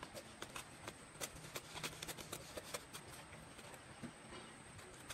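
Scissors snipping through a sheet of paper: a run of faint, irregular clicks.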